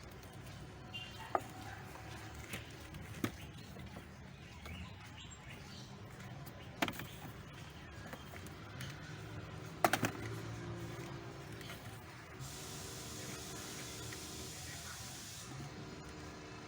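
Scattered clicks and knocks of hands working on a car's plastic dashboard panels, with the loudest knock about ten seconds in. A steady hiss runs for about three seconds near the end.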